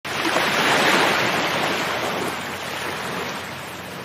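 A rushing noise like surf or wind, starting suddenly, loudest about a second in, then slowly easing.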